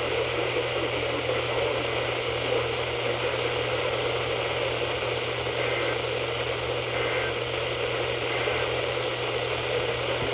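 Steady radio static hiss from a weather-radio receiver, with a steady low hum underneath.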